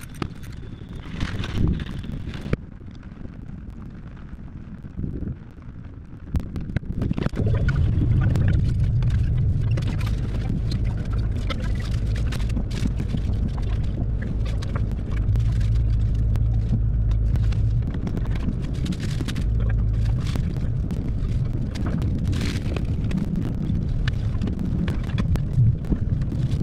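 Inside a car: rain ticking on the windshield and roof, then, about seven seconds in, the car's steady low drone of engine and tyres as it drives on wet pavement, with scattered drops still ticking.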